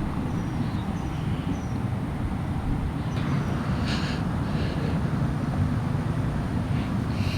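Steady low rumble of hurricane wind blowing over the microphone. A few faint, short high chirps come in near the start.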